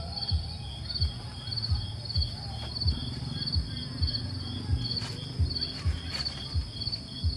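An insect chirping in a steady, even rhythm, about one and a half high chirps a second, with irregular low dull thumps louder than the chirping.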